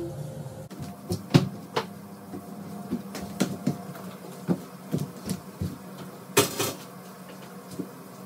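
Scattered light knocks and clatter of cleaning things and fittings being handled while a toilet room is cleaned, with a short rush of noise about six and a half seconds in. A steady low hum runs underneath.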